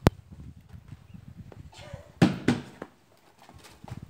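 Plastic rake scraping over a gritty concrete floor in several short strokes, the loudest pair a little over two seconds in, after a sharp click at the very start.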